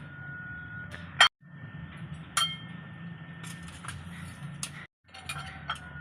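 Kitchen utensils clinking against cookware a few times, the loudest clink about a second in, over a steady low hum. The sound cuts out to silence twice, briefly.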